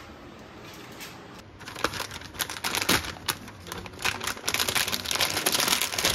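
Crinkling and tearing of a plastic hot pot soup-base packet (Haidilao mushroom soup) as it is handled and torn open. The crackly rustling starts about a second and a half in and keeps on.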